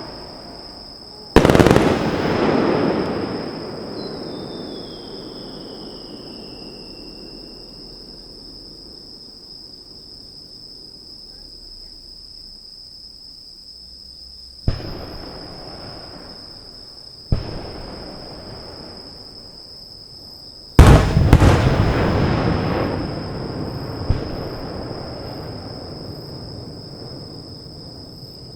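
Fireworks shells bursting overhead. A loud boom about a second in rolls on and dies away over several seconds. Two sharp single bangs come around the middle, then the loudest burst near the end is followed by a long rumbling, crackling tail and one more bang.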